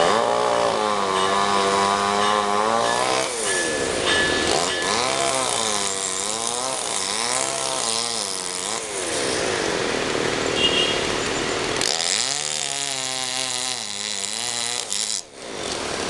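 Chainsaw engine revving and cutting, its pitch repeatedly rising and falling as it is throttled up and bogs under load, with lulls around 3 s and from about 9 to 12 s.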